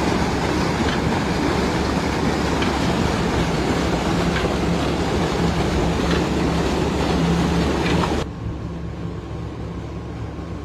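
Water gushing from tubewell outlet pipes and splashing into a concrete channel, a loud steady rush with a low engine hum beneath. The rush cuts off abruptly about eight seconds in, leaving a quieter low hum.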